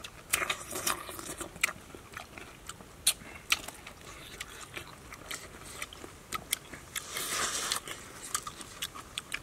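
A person biting and chewing fresh pineapple: irregular crisp crunches and mouth clicks, with a longer stretch of crunching about seven seconds in.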